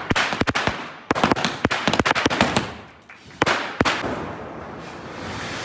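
Small firecrackers bursting on the ground in quick, irregular runs of sharp cracks, then two single cracks about three and a half seconds in.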